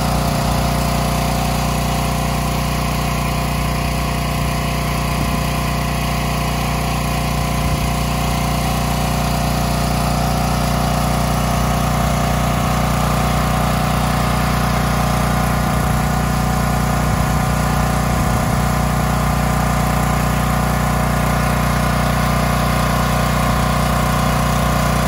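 Champion 100110 portable generator, converted with a tri-fuel kit and fed from a propane tank, running steadily at an even, unchanging speed.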